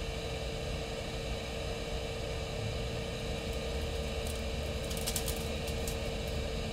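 Steady workshop hum with a constant mid-pitched tone running under it. A few light clicks and rustles of a wire being handled come about four to six seconds in.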